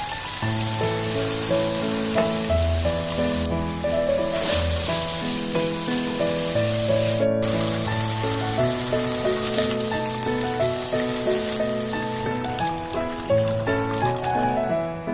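Background music with a melody of held notes over a steady sizzle of food frying in a pan, with a brief break about seven seconds in.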